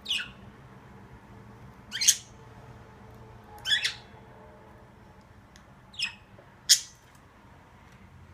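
Pet parakeets squawking, five short sharp calls a second or two apart, over a low steady hum.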